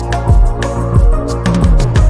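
Background music with a steady drum beat: deep kick-drum thumps about twice a second over held keyboard notes.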